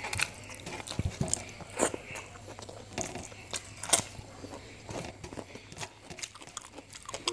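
A person chewing and smacking on a mouthful of rice eaten by hand, picked up close: irregular wet clicks and smacks, the loudest about two and four seconds in.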